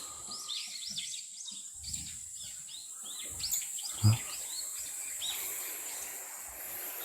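Small birds chirping, a busy series of short, quick, high-pitched notes, over a steady high hiss. A faint low thud about four seconds in.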